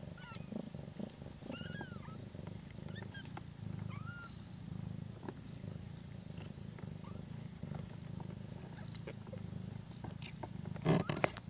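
Mother cat purring steadily while her twelve-day-old kittens nurse, with a few faint, short high squeaks from the kittens in the first few seconds. A brief loud knock about a second before the end.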